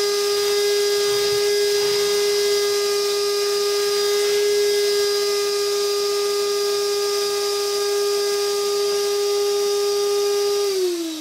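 Vacuum cleaner running with a steady whine and rush of air as its hose sucks lint and debris out of a dryer drum. Near the end it is switched off, and the motor winds down with its pitch falling.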